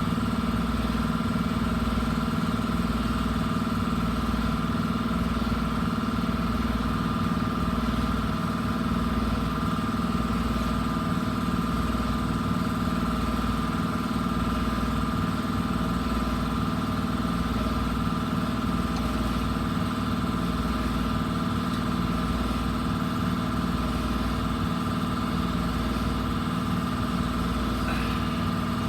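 An engine running steadily at idle, an even drone with a constant pitch and no change in speed.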